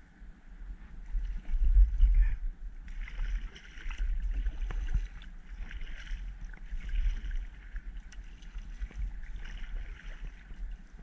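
Kayak paddle strokes in the water, a splash of water every two to three seconds, over a steady low rumble.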